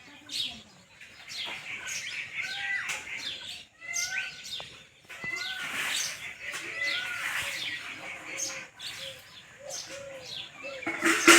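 A group of small pet parrots chirping and chattering, with many short calls overlapping and a louder sharp call near the end.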